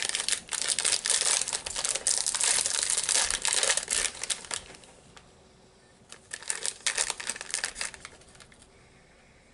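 Crinkly biscuit wrapper being handled and opened. The crinkling is dense for the first four and a half seconds, eases off, then comes back in a second, shorter run about six seconds in.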